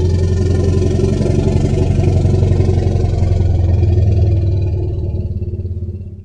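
Woolly mammoth sound effect: a deep, rough rumbling call held at a steady low pitch, fading out near the end.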